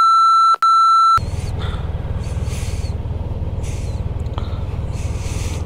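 Two loud, high censor bleeps in the first second, blanking out swearing. Then a low, steady engine rumble from a motorcycle idling at the roadside.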